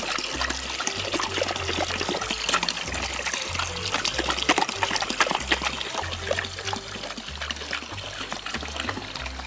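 Water running from a garden hose into a plastic bucket while a Saint Bernard laps from it, with many small splashes throughout. Background music with a low repeating bass line plays underneath.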